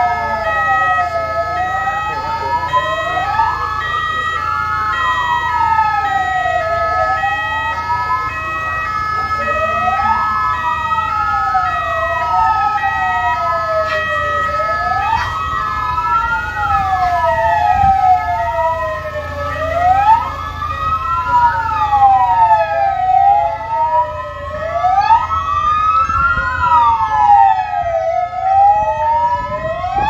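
Several ambulance sirens sounding at once: slow rising-and-falling wails overlapping out of step, over a steady held tone and a low rumble.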